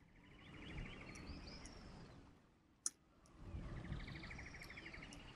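A single sharp computer mouse click about three seconds in. Before and after it come two faint, rapid chirping trills, each about a second and a half long.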